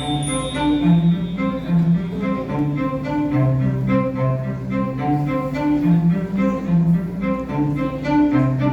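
Instrumental music: bowed strings playing a low melody in held notes that change about every half second.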